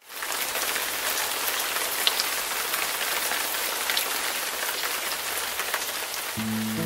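Steady rain falling on wet pavement, a dense even hiss with scattered individual drop splashes, fading in at the start. Soft music notes come in near the end.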